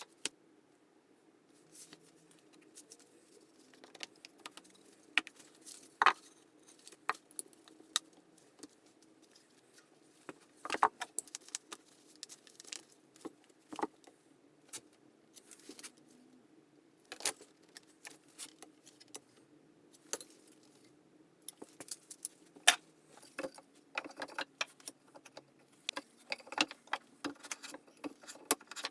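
Irregular light clicks, taps and knocks of hand-tool work at a workbench, with wood and small tools being handled, growing busier near the end, over a faint steady hum.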